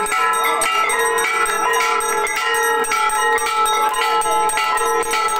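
Hindu temple bells clanging rapidly and without pause, many strokes overlapping into a continuous ringing, as they are rung during an aarti.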